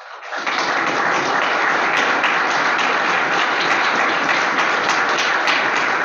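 Audience applauding. The clapping builds within about half a second and then holds steady, with a few sharper individual claps standing out.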